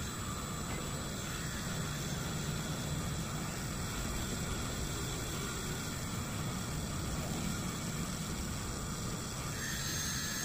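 Handheld rotary tool running steadily, its felt polishing wheel buffing a copper-plated pendant with white diamond compound to smooth out scratches.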